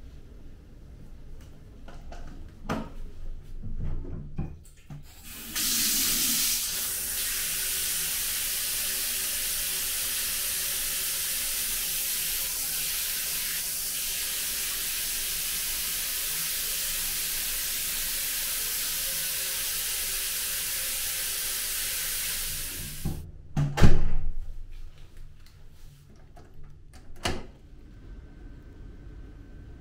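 Hand-held shower head spraying water onto a tiled shower floor: a steady hiss that starts about five seconds in and stops sharply after about eighteen seconds. A few knocks and clicks follow, one of them a loud sharp knock.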